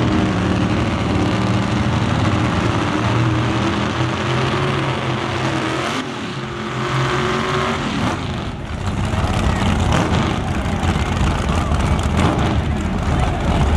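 Big-block V8 drag-racing engines running at the start line, with a rising rev about halfway through. From about two-thirds of the way in, a louder burnout follows: the engine is held high while the tyres spin.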